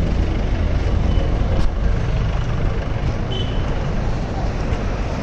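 Street traffic ambience: a steady low rumble of vehicles on the road. A single sharp click comes under two seconds in, and a brief high chirp a little after three seconds.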